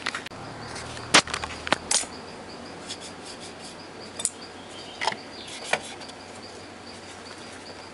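Hard plastic clicks and light knocks from handling an opened portable radio's cabinet and dial parts. One sharp knock comes about a second in, followed by a quick run of clicks, then three fainter clicks spaced out later.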